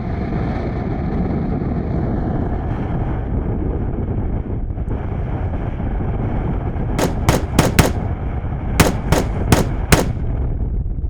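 Vehicle cabin rumble as a truck drives off, then eight sharp airsoft rifle shots in two quick groups of four, about three a second, starting past the halfway mark.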